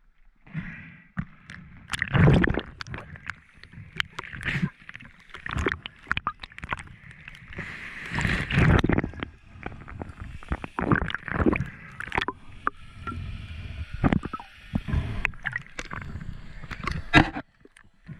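Water sloshing, splashing and bubbling around a diver's camera as it moves at and below the sea surface, in irregular surges; it cuts off abruptly near the end.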